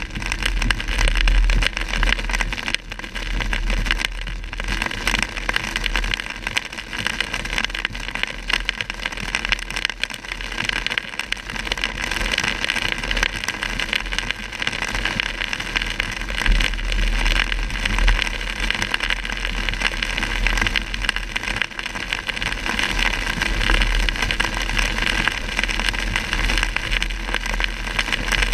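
Heavy rain on a moving car, heard from inside the cabin: a dense, steady hiss of rain and tyre spray on the flooded road over a constant low rumble.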